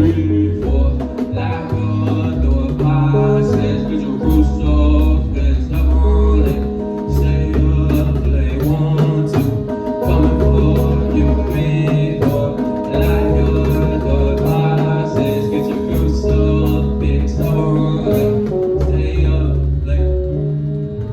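Music played loud through a PA: a heavy, pulsing bass line under sustained pitched notes, with a steady cymbal tick keeping the beat.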